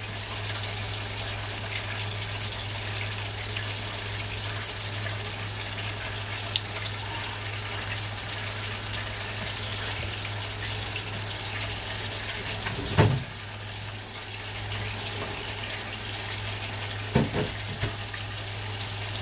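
Steady hiss of chicken frying in hot oil over a low steady hum, with two brief knocks, one about two-thirds of the way through and one near the end.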